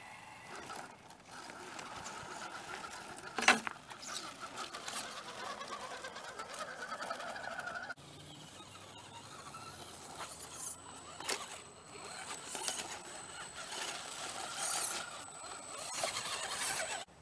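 Electric motor and gear drive of a scale RC crawler, a 1966 Chevy C10 body on an SCX10 II clone chassis, whining unevenly as it crawls over rocks, with one sharp knock about three and a half seconds in. After a cut about halfway, a second RC crawler's drive gives a thin, steady high whine with scattered small clicks as it comes closer.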